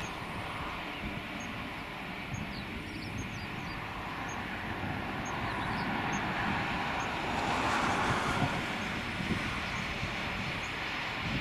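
Eurofighter Typhoon's twin EJ200 turbofans running at taxi power as the fighter rolls along the taxiway: a steady jet rush that swells about eight seconds in.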